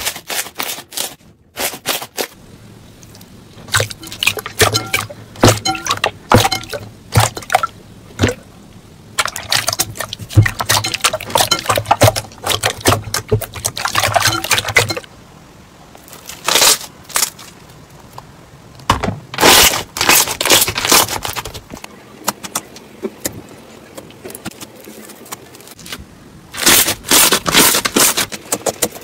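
Slime being squeezed and pressed by hand, giving runs of quick crackling and popping clicks in bursts with quieter pauses between. A low steady hum lies under the first half.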